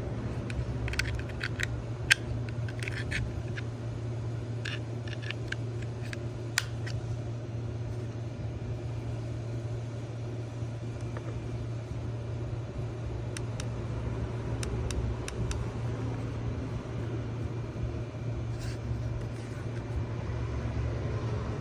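Scattered small clicks and taps, several in the first few seconds and more in the second half, over a steady low hum.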